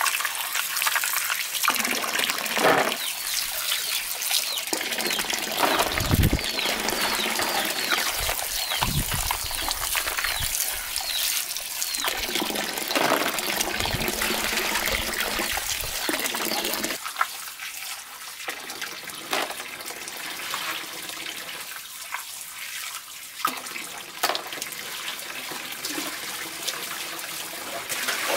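Water pouring from a bamboo pipe into an aluminium basin and splashing as hands scrub mussels in it, with a few low thumps. The splashing grows quieter after about two-thirds of the way through.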